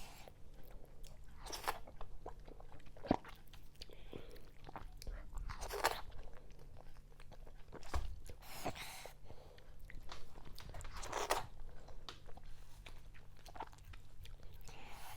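Close-miked chewing and wet mouth sounds of someone eating fufu with okra vegetable soup, coming in irregular spells every two to three seconds, with a single sharp click about three seconds in.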